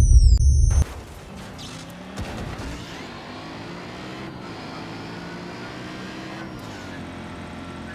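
A loud low rumble that cuts off abruptly under a second in, then a motor vehicle's engine running, its pitch rising and falling.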